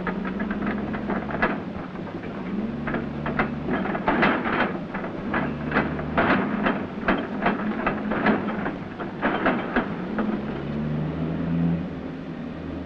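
Cargo being loaded onto trucks: an engine running steadily under a string of irregular metal clanks and knocks, which come thickest in the middle and thin out near the end.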